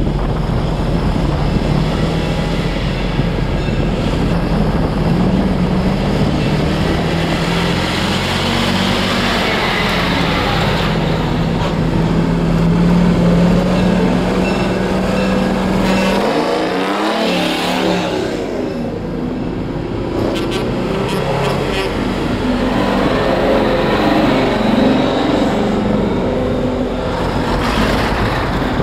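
Vintage trucks driving past one after another, their engines running and pulling away. About two-thirds in, one passes close with a falling sweep in its engine note.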